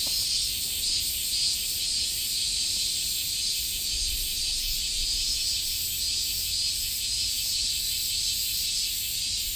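Insects chirping in a steady chorus, with a high pulsing trill repeating a couple of times a second.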